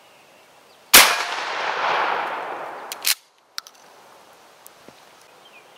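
A single 12-gauge shotgun shot about a second in, firing a 1-ounce rifled slug into a quarter-inch mild steel plate with a metallic clang. The report echoes and dies away over about two seconds, then the sound cuts off suddenly.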